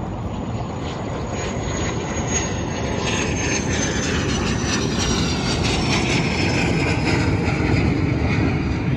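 An airplane flying over: a steady engine rumble that grows louder, with a thin high whine slowly falling in pitch.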